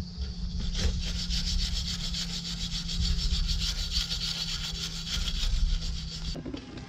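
A cutting tool rasping with rapid, even strokes, stopping abruptly about six seconds in.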